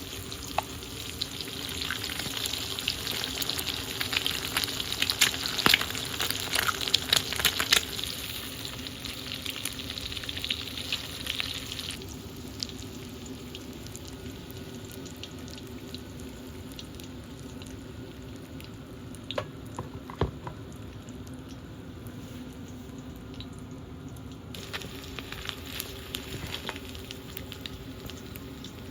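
Food sizzling and crackling in a frying pan. It is loudest with many pops in the first eight seconds or so, then dies down to a low sizzle, with a steady low hum underneath.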